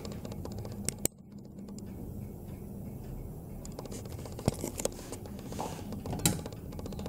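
Pendulum wall clock ticking steadily, with a few sharp knocks and scrapes from a hand handling the clock case, about a second in and again near the middle and end.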